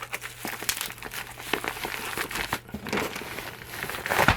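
Packing material crinkling and rustling as it is handled and pulled apart by hand, in a run of irregular crackles with a louder crunch near the end.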